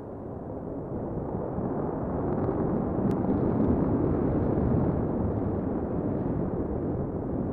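Starhopper's single Raptor rocket engine firing, a steady low rumble that swells over the first few seconds and then holds. One sharp click about three seconds in.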